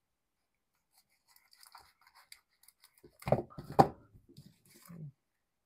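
Scissors cutting through the clear plastic packaging that joins 1 oz silver bars, with soft crinkling and snipping of the plastic. About three seconds in there are a couple of louder knocks.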